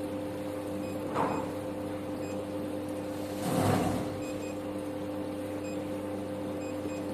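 Soprano Titanium diode laser hair-removal machine humming steadily as it runs, its cooling fan and pump going, with a brief rustle of the plastic wrap over the touchscreen about a second in and a louder one about three and a half seconds in.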